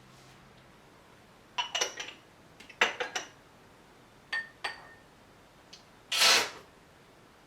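Cups and dishes clinking: a few scattered clinks that ring briefly, in small clusters. Near the end comes a louder, short rushing noise of about half a second.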